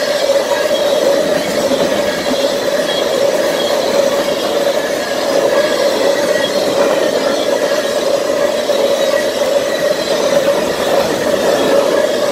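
Steel wheels of an oil train's tank cars rolling past on the rail, a steady rolling noise with a continuous squealing tone from the wheels that holds level throughout.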